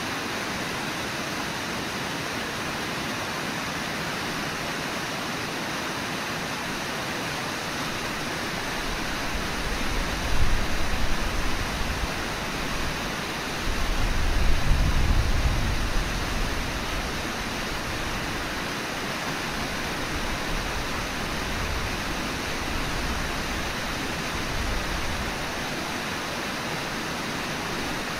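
Steady rush of the Brooks River's flowing water. A few low rumbles rise over it, the loudest about fourteen to sixteen seconds in.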